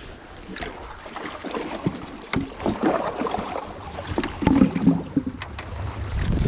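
Wind on the microphone and water noise, with scattered irregular knocks and clicks.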